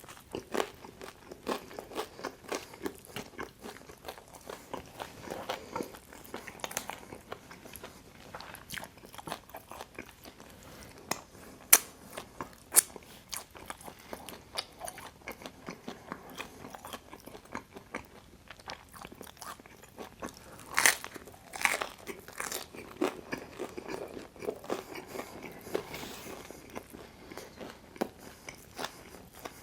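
Close-miked eating of Detroit-style pizza: bites and chewing with crunchy, crisp clicks throughout, a few sharper and louder ones about twelve seconds and twenty-one seconds in.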